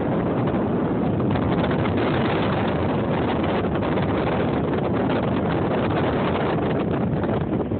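Strong wind buffeting the microphone, a steady rough rushing with no pauses.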